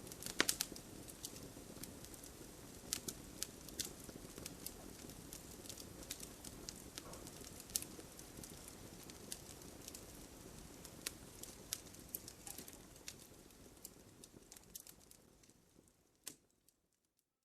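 Wood fire crackling, with irregular sharp pops over a low steady rumble, fading out near the end.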